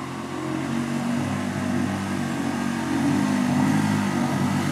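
Small outboard motor on an inflatable dinghy running at a constant throttle, its revs rising and falling on their own. The owner puts this down to the propeller over-revving in turbulent, bubbly water shed by the hydrofoil wings, losing thrust.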